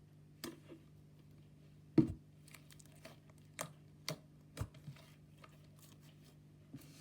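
Slime being pressed and worked by hand, giving a series of sharp clicks and pops, the loudest about two seconds in.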